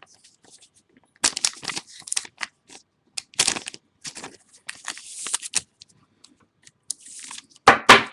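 Trading cards and their packaging being handled at close range: irregular rustling and crinkling with sharp clicks, in several separate bursts.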